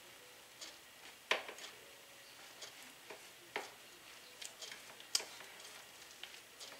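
A fork clicking and scraping against a ceramic plate as canned tuna and raw eggs are mashed together: faint, irregular light clicks with a few sharper ones.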